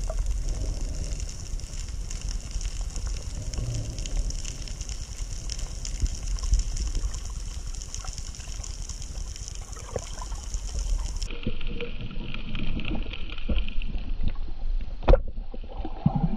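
Underwater ambience heard through the water: a steady muffled rush with a low rumble and fine crackling. The hiss shifts abruptly to a lower pitch about eleven seconds in, and a single sharp click comes near the end.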